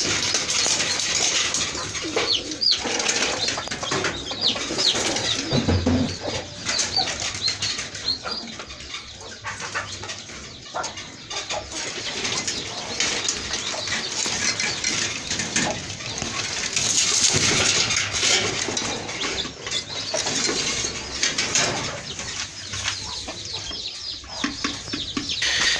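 Pigeons flapping their wings and scuffling in a loft while birds are caught and handled, with continuous rustling and clattering throughout.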